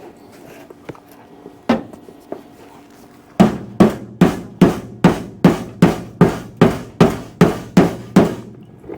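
A single knock, then a run of about a dozen sharp, evenly spaced strikes, roughly two and a half a second, each with a short ringing tail.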